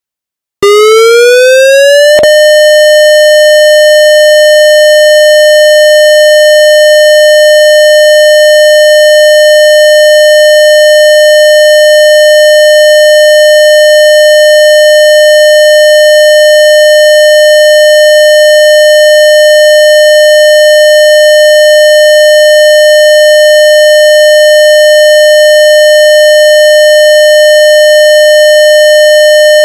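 Synthesized warning-siren tone made in software. It starts suddenly, winds up in pitch for about a second and a half, then holds one steady pitch.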